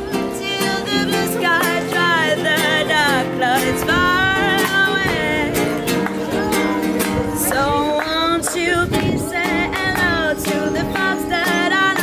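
A woman singing a melody, holding notes with vibrato, while she strums chords on a classical (nylon-string) guitar.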